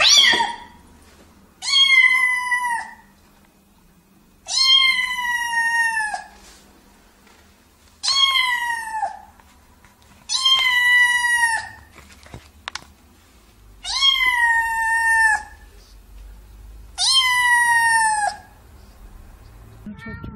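A domestic cat meowing loudly and insistently: seven long meows, one about every three seconds, each holding its pitch and then dropping at the end.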